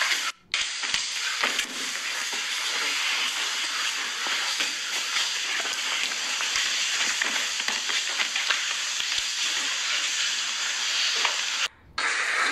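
Steady hiss with many faint scuffs and taps through it. It cuts out twice, briefly: about half a second in and again near the end.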